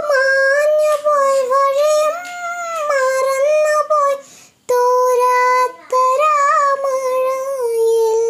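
A young girl singing unaccompanied, sustaining notes with small glides in pitch. She breaks off briefly about halfway to breathe, and near the end holds one long steady note.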